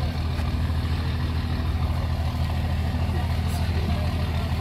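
An engine idling steadily, a constant low rumble, with people talking faintly underneath.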